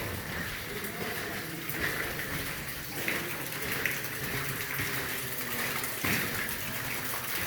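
Water dripping and splashing in a mine tunnel, a steady rain-like patter of drops with scattered small ticks and a slight knock about six seconds in.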